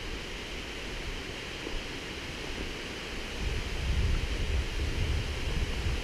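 Steady rushing of flowing water, with an uneven low rumbling that grows louder about halfway through.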